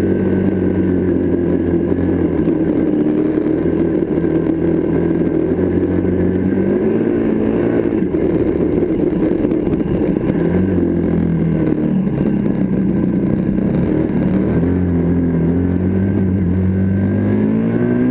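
Benelli TNT 125's single-cylinder four-stroke engine running under way, heard from on the bike. The engine note holds steady at first, then rises and falls with the throttle over the second half.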